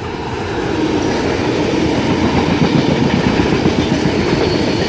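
Sydney Trains S-set double-deck electric train running through the station without stopping: steady wheel-on-rail rumble and clatter that swells over the first second, then holds.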